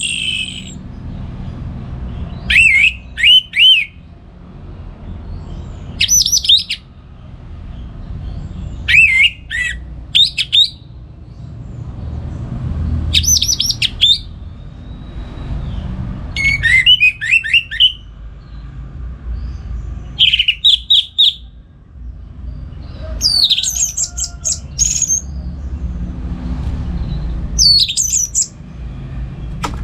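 Orange-headed thrush singing in full song: short, loud phrases of quick, bending whistled notes, about one every three seconds, over a steady low background rumble.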